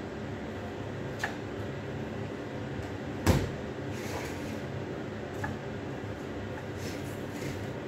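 A single sharp knock on the wooden display cabinet about three seconds in, with a couple of faint clicks before and after, as hands press a self-adhesive LED strip into place; a steady low hum runs underneath.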